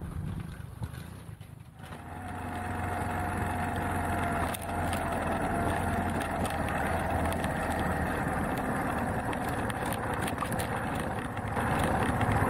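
A Beta Alp trail motorcycle's single-cylinder engine running at a steady pace, heard from a camera on the bike as it rides a stony track, with a rough rush of wind and noise over it. It is fainter for about the first two seconds, then steady, with its note slowly dropping, and it picks up again near the end.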